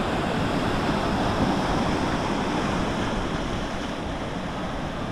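Ocean surf washing onto a beach, a steady rushing noise that swells slightly and eases, with wind buffeting the microphone.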